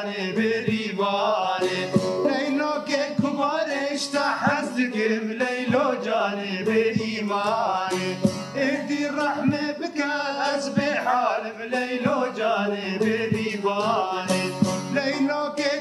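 Two men singing a Kurdish folk song, accompanied by a plucked saz (bağlama) and a banjo-like long-necked lute.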